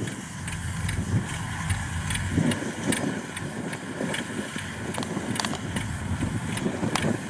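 Farm machinery engine running steadily as a low rumble, with scattered faint clicks over it.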